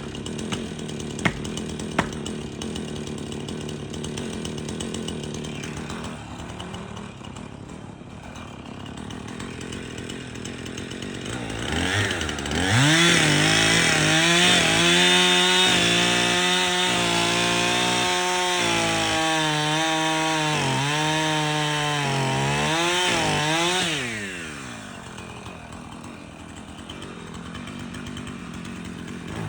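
Two-stroke chainsaw idling, with two sharp knocks in the first couple of seconds. About twelve seconds in it revs to full throttle and cuts into a spruce trunk for about ten seconds, the engine pitch dipping again and again as the chain loads up in the wood, then it drops back to idle.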